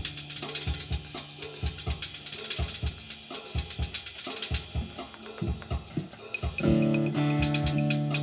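Music: a drum-kit beat with a steady kick and snare pattern over held bass tones, joined by a louder sustained chord about six and a half seconds in.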